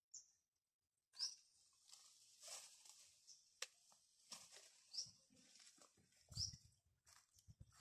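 Faint rustling of leafy duhat tree branches being pulled and handled for fruit, with a sharp snap about three and a half seconds in. Several short high chirps are heard alongside.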